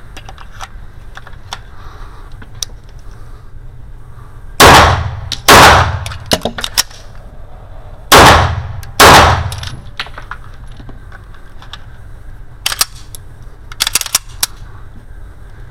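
Four 9mm pistol shots from a Bul 1911 single-stack, in two pairs with about a second between the shots of each pair. Sharp metallic clicks follow near the end as the magazine is changed.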